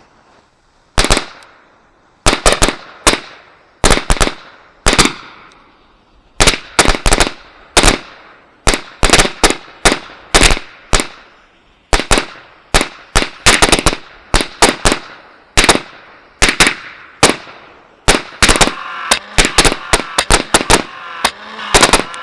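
A long run of loud firecracker bangs set off as pyro charges. The bangs are irregular, often in quick pairs and triplets, and each dies away in a short echo. A steady hiss builds up under the bangs near the end.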